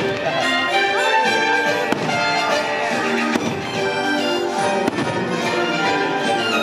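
Orchestral music with prominent brass from a fireworks show's soundtrack, with a few sharp bangs over it.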